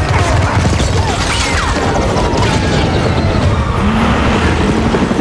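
Loud action-film sound mix: mechanical rumble and crashing, clanking impacts under a music score, with no dialogue.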